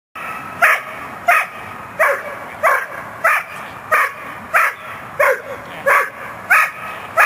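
Young Belgian Malinois, seven months old, barking at a training helper in protection work: a steady, even run of barks, about three every two seconds.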